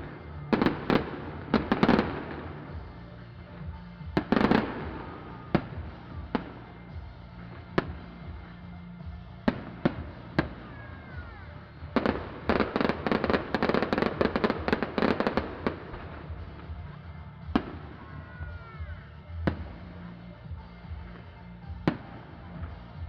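Fireworks show: aerial shells bursting in sharp bangs, with dense crackling volleys about a second in, around four seconds and from about twelve to fifteen seconds. Scattered single bangs fall in between, and whistling glides come twice. Electronic dance music with a steady bass plays underneath.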